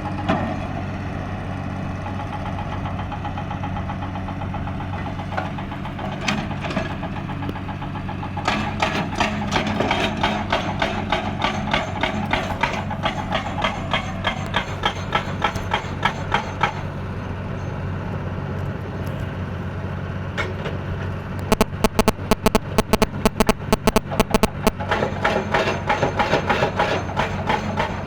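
Hydraulic excavator's diesel engine running steadily, with stretches of rapid, regular metallic clatter, loudest for a few seconds about three-quarters of the way through.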